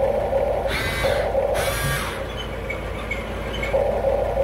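Top Race TR211M all-metal electric RC excavator's motors and gearboxes whirring as its stick controls are worked, with a steady drone and two short stretches of higher, shifting whine about a second and two seconds in.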